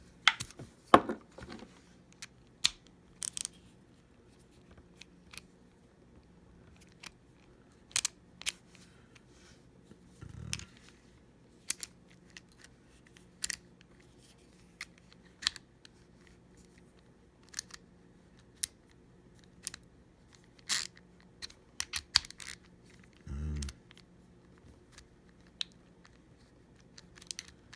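Scattered sharp clicks, taps and light rattles of small tool bits and plastic tool parts being handled and fitted together, over a faint steady hum.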